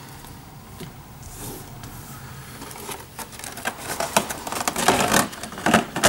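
Clear plastic packaging being handled and turned over: crinkling and clicking, quiet at first and busier from about halfway in.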